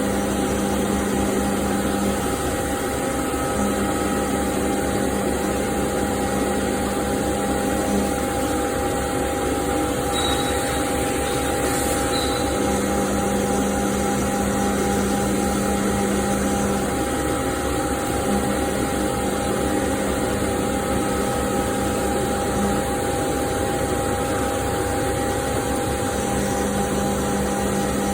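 CNC machining centre cutting SS400 mild steel: a steady machine hum with a low tone that comes and goes every few seconds as the cut goes on.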